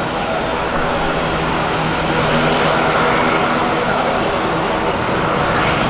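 Aircraft engines running with a steady, loud drone that carries a layered hum of steady tones.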